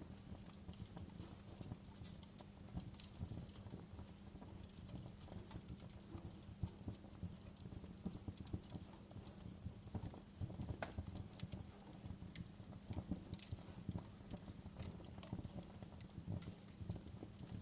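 Fireplace fire crackling: irregular sharp pops and snaps over a low, steady rumble.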